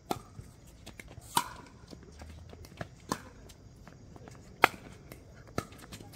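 Pickleball paddles hitting a plastic ball back and forth in a rally: sharp pops every one to one and a half seconds, the loudest with a short ring, and fainter ticks between them.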